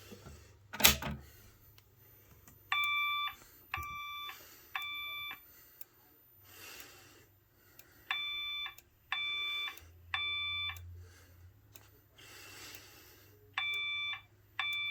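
Fire-Lite voice evacuation alarm tone sounding in the temporal-three pattern: three half-second beeps about a second apart, the set repeating every five and a half seconds. It is the evacuation signal that comes before the spoken fire message. About a second in there is a sharp click as the single-action pull station is pulled.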